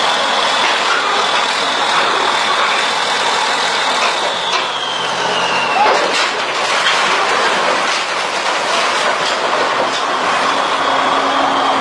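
Crawler bulldozer working on a steel ramp: its steel tracks clank and clatter over the engine. A high squeal slides down in pitch about five seconds in, followed by a cluster of sharp metal clanks.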